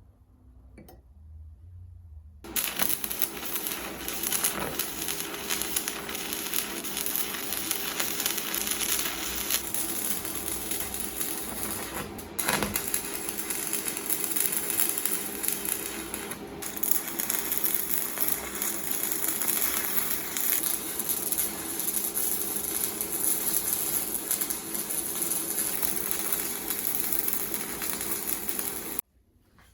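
Loud, steady, harsh metalworking noise with a faint steady hum underneath. It starts abruptly about two and a half seconds in and cuts off suddenly shortly before the end.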